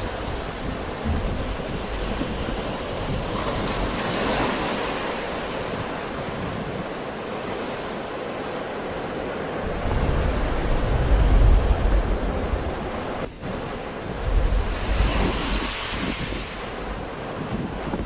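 Sea waves breaking and washing in, with a surge of hissing wash about four seconds in and again near the end. Wind buffets the microphone in low rumbles through the second half.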